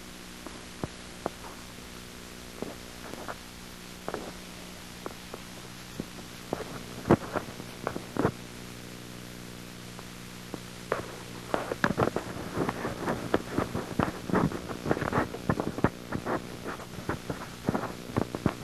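Steady electrical hum with irregular clicks and crackles. The clicks are scattered at first and come thick and fast in the last several seconds.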